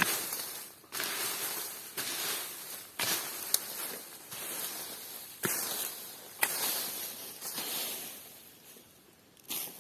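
Footsteps crunching on a forest floor at a slow walking pace, about one step a second, with a few sharp clicks among them, growing fainter near the end.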